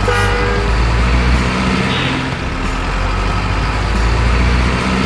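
Heavy diesel truck engine running with a steady, deep, low rumble.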